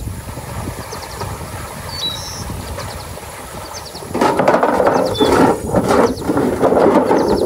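Rocks tipped out of a metal bucket into a rusty metal wheelbarrow, clattering and scraping loudly for about three seconds, starting about four seconds in. Before that, quieter shuffling with faint bird chirps.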